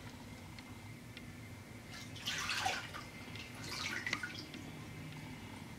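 Water splashing and streaming off a hard plastic gun case as it is lifted out of a tub of water, in two bursts about two and four seconds in, after a quiet stretch while it is held under.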